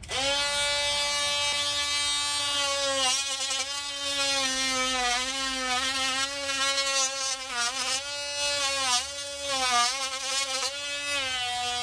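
Cordless oscillating multi-tool switching on and sawing into drywall with a plunge saw blade. It makes a steady, high buzz that starts abruptly, and its pitch wavers and dips again and again as the blade bites under load.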